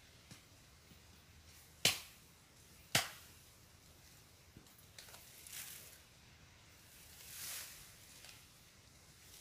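Two sharp machete chops into a bamboo cane at its base, about a second apart, then a few light knocks and the rustle of bamboo leaves as the cut cane is drawn out of the clump.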